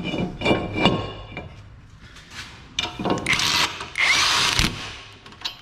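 Metallic clanks that ring like the brake rotor disc being handled on the hub. About three seconds in, a power tool whirs in two short runs, such as a drill or impact driver spinning on a lug nut.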